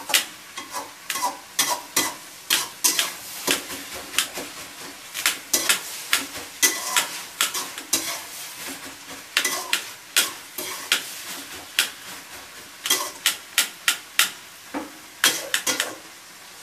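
Kitchen knife chopping on a steel plate: sharp clicks of the blade striking the metal, several a second in uneven runs with short pauses.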